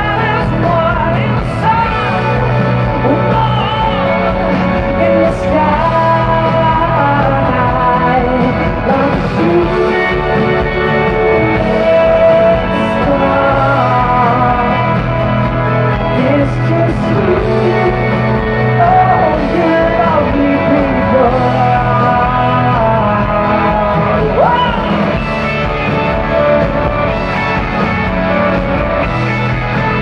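A man singing live into a microphone over instrumental backing music.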